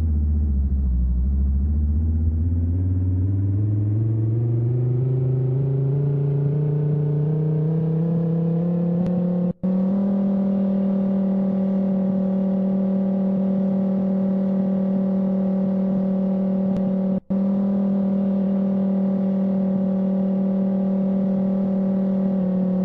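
Tornado warning siren. Its pitch sinks to its lowest about a second in, winds up steadily for about nine seconds, then holds one steady tone. The sound cuts out briefly twice.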